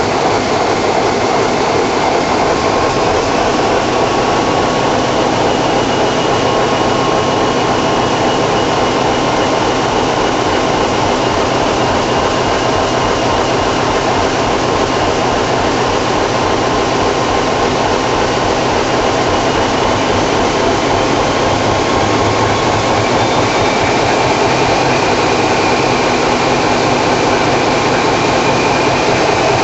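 Class 33 locomotive's Sulzer 8LDA28 eight-cylinder diesel engine running loud and steady, heard from inside the engine room. A faint whine sits over the engine noise and rises slightly in pitch near the end as the engine powers up.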